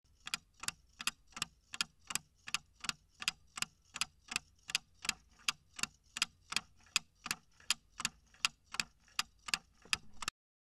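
Clock-ticking sound effect for a countdown timer: evenly spaced sharp ticks, a little under three a second, stopping abruptly when the count reaches zero.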